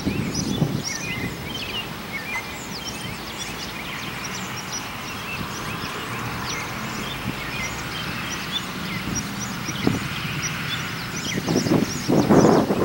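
Diesel locomotive engine humming low and steady as it creeps slowly on rough track, with birds chirping throughout. Near the end a dump truck drives past close by, and its engine and tyre noise become the loudest sound.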